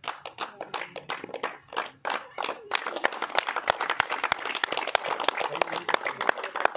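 Onlookers clapping, scattered at first, then thickening into steady applause about three seconds in.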